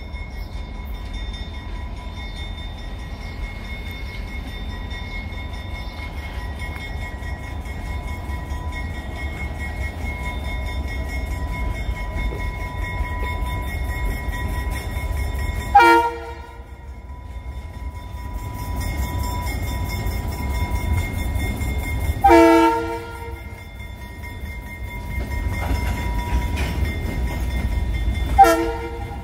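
Diesel locomotive running with a steady low rumble as it hauls covered hoppers past. Its multi-note air horn sounds three times: briefly about halfway through, longer about six seconds later, and briefly again near the end.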